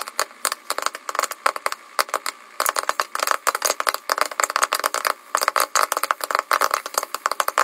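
Popcorn kernels popping in an electric stirring popcorn maker under a clear plastic dome: a fast, irregular crackle of sharp pops, sparse at first and much denser from about two and a half seconds in, as the popping reaches full swing.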